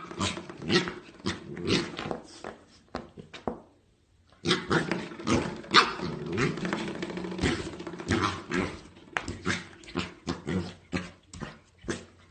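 A dog making short, repeated sounds, broken by a pause of about a second near four seconds in.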